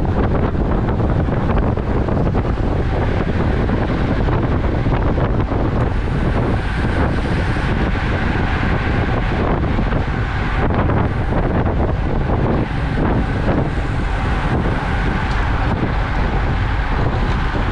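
Wind buffeting the microphone of a bike-mounted action camera riding in a road-cycling peloton at about 35 km/h: a steady, heavy low rush with no break.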